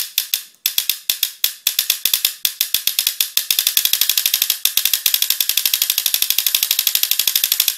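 Electronic trigger frame of a BT Delta Elite paintball marker, off the gun and without air, its solenoid clicking as the trigger is worked in 13 bps ramping mode. The first second or so is short bursts; then a long run of fast, even clicks, a dozen or so a second.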